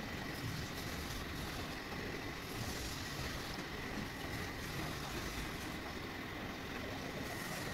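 Milling machine end mill cutting a slot into a steel hex locking nut: a steady machine running noise with a thin, constant high whine.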